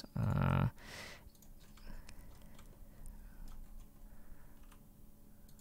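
Faint, scattered clicks of a computer mouse and keyboard, including mouse-wheel scrolling, over quiet room noise. A short hummed voice sound comes first and is the loudest thing.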